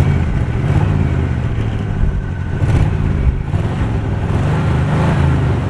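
A 350 V8 in a 1973 Chevy one-ton pickup running steadily with a low rumble.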